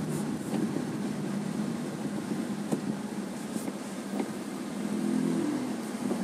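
Inside a moving car: steady engine and road noise while driving slowly on a wet road, with a few faint clicks and the engine note swelling briefly about five seconds in.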